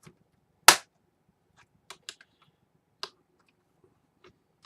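Plastic push tabs on a Dell Inspiron 11 laptop's bottom panel clicking loose as a flathead screwdriver pries around the edge. One loud sharp snap under a second in, then several fainter clicks.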